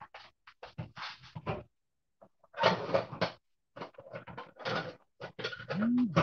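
Off-camera kitchen clatter: irregular knocks, bumps and short rustling bursts, as of cupboard doors and cookware being handled. Near the end come two short low squeaks that rise and fall.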